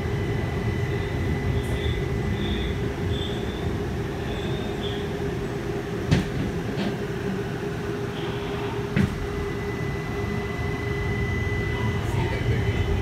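Steady low running rumble inside a moving Brookville Liberty streetcar. A thin, steady high whine comes and goes, and two sharp knocks sound about six and nine seconds in.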